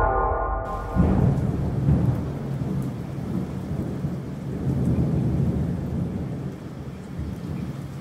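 A low, rolling rumble over a steady hiss, like thunder with rain, following music that ends about a second in.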